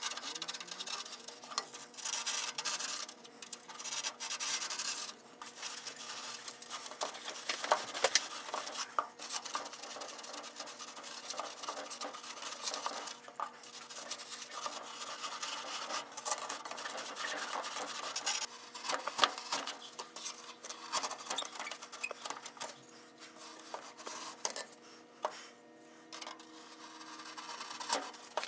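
Hand scraping and rasping at soft refractory insulation board, irregular strokes with small sharp ticks, over a steady hum.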